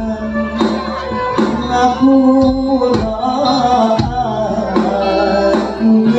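Live ensemble music with singing over keyboard and percussion, with regular drum strikes.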